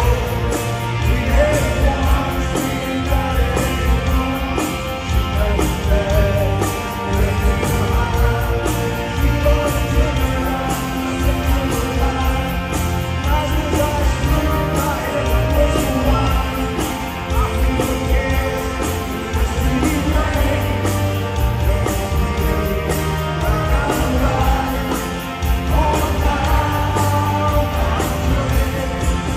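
Live rock band playing a song: a male lead vocal over electric guitar and drums with a steady beat.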